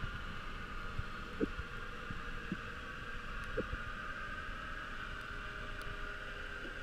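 Muffled underwater ambience picked up by a camera sealed in a waterproof housing: a steady hum and low rumble, with a few soft knocks in the first few seconds.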